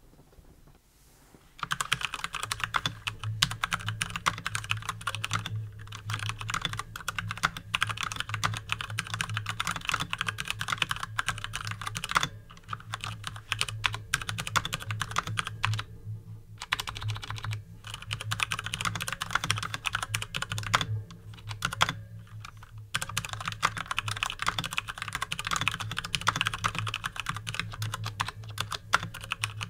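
Typing on a Durgod Taurus K320 mechanical keyboard with Cherry MX Brown tactile switches, set on a desk mat: a fast run of key clicks that starts about a second and a half in, broken by a few short pauses.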